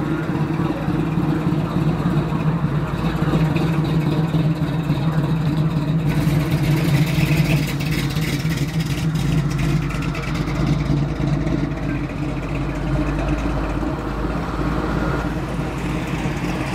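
Classic cars' engines running at low speed as the cars drive slowly past, a steady low engine note.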